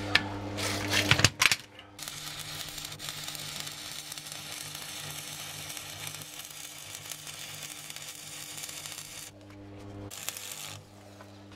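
Stick (arc) welding on steel car wheel rims: the arc crackles and sizzles steadily for about seven seconds as a weld is run along the seam, starting about two seconds in after a few sharp metal knocks, with a short burst of arc again near the end.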